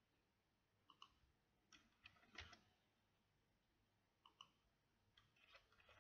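Faint computer mouse button clicks over near-silent room tone: a few scattered single clicks and quick pairs.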